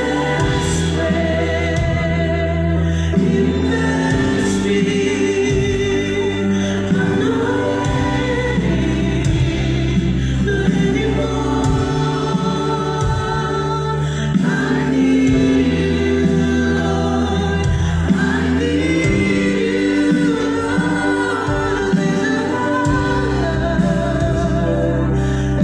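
Live church worship band playing a gospel song: singers with acoustic-electric guitar, bass guitar and keyboard, amplified through the stage speakers.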